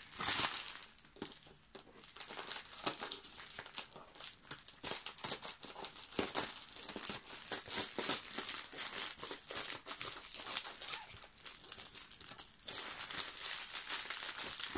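Plastic poly mailer bag crinkling and rustling in irregular bursts as it is opened and the parcel's contents are pulled out by hand.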